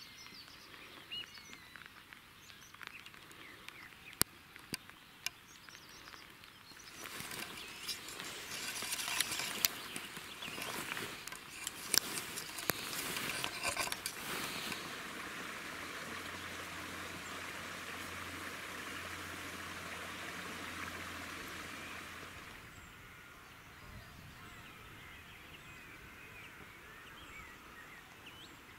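Outdoor rural ambience with faint bird calls. A louder stretch of rustling with scattered knocks runs through the middle as long grass brushes past the microphone.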